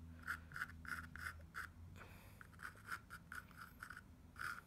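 HB graphite sketch pencil drawing on a primed canvas panel: a run of short scratchy strokes, with a brief pause about two seconds in.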